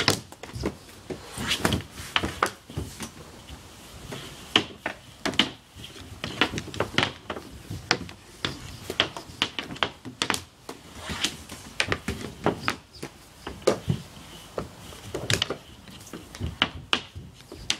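Ball hockey sticks clacking on a plastic shooting pad as balls are shot at a goalie and net, the balls smacking into pads and netting: a steady stream of sharp, irregular knocks.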